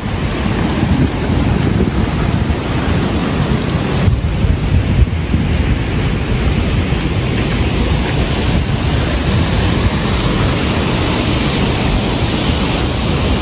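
Wind blowing over the microphone in falling wet snow: a loud, steady rumbling hiss with no let-up.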